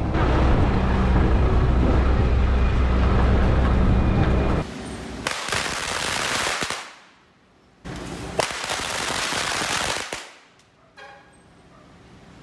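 Strings of firecrackers going off in rapid crackling bursts for Chinese New Year. A long dense stretch comes first, then two shorter ones that die away.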